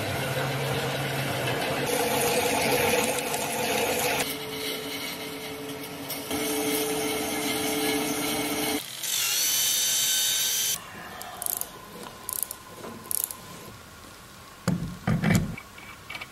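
Pedestal drill press running and drilling a hole into the steel output shaft of a geared electric motor, with a brief higher whine just before the middle. The drilling stops part way through and gives way to scattered clicks and knocks of metal parts being handled and fitted together.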